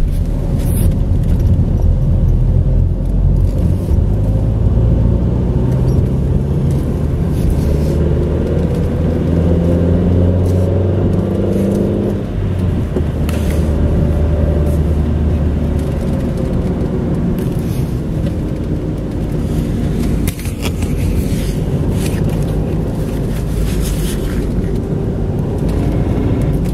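Car driving, engine pitch rising as it speeds up over the first twelve seconds or so, then running steadily with road rumble. Occasional short ticks sound over it.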